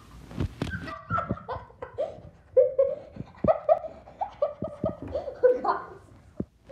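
A young person laughing, a run of short bursts of laughter with brief pauses between them, stopping shortly before the end.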